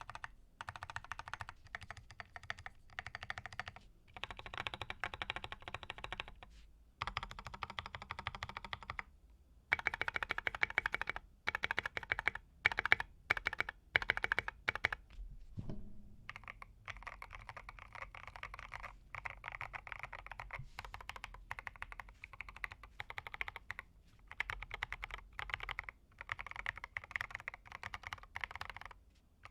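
Typing on a mechanical keyboard with lubed and filmed C3 Equalz Kiwi tactile switches in a BM65 with a steel plate: fast runs of keystrokes broken by short pauses, with a stretch of louder, more spaced single strokes in the middle.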